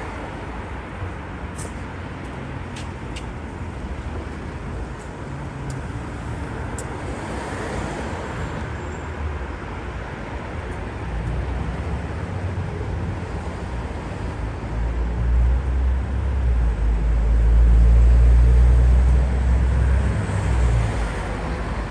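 City street traffic: a steady wash of passing road traffic with a few sharp clicks in the first third. About two-thirds in, a heavy low rumble from a large vehicle close by builds up, is loudest a little later, then eases off near the end.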